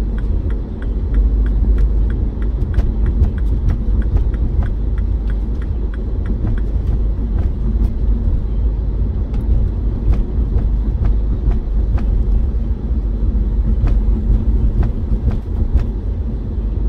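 Car road noise heard from inside the cabin while driving: a steady low rumble of tyres and engine, with faint light clicks scattered throughout.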